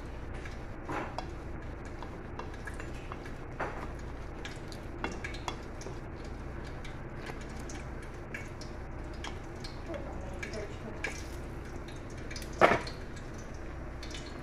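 Spatula stirring shrimp in a metal pan: scattered clinks and scrapes of the utensil against the pan, with one louder knock near the end, over a steady low hum.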